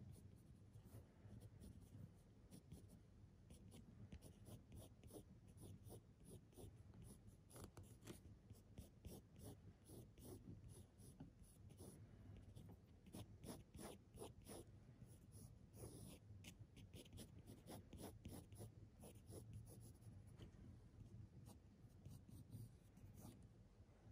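Faint pencil strokes scratching on paper: many short, irregular sketching strokes.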